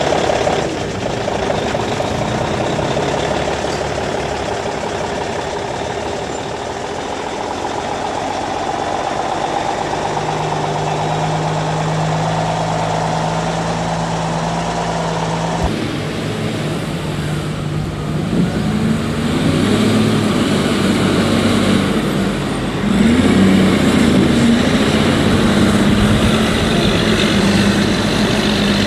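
Heavy diesel engines of loaded log trucks: one drones steadily, then after a sudden change about halfway through another pulls away under load, its engine note rising and falling several times.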